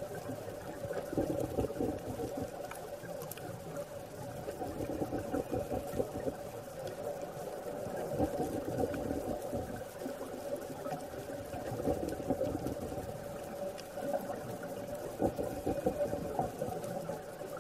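Muffled underwater sound through a camera housing: scuba divers' exhaled bubbles gurgling and crackling, swelling every few seconds, over a steady low hum.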